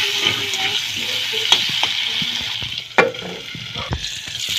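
Potato wedges sizzling in hot oil in a metal kadai while a metal spatula stirs and scrapes them against the pan. There is a sharp knock about three seconds in.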